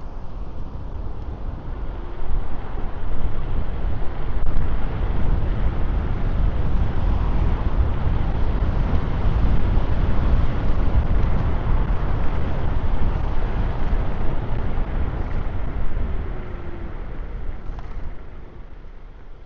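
Wind rushing and buffeting over the microphone, with road noise, while riding an electric scooter at speed. It swells about two seconds in and eases off near the end.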